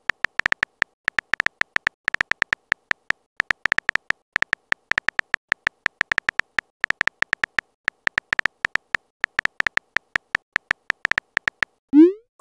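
Phone keyboard typing sound effect: short, thin-pitched key clicks, several a second in uneven runs. Near the end comes a quick rising swoosh as the message is sent.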